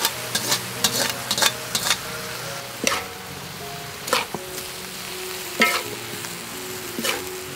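Octopus and shredded ginger sizzling in a metal wok as a metal spatula stirs and scrapes through them. The spatula clicks against the pan quickly for the first two seconds, then only about once a second.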